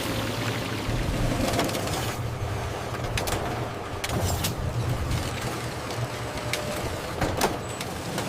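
Steady low mechanical hum with a noisy wash over it, and scattered sharp clicks and clanks, the loudest near the end.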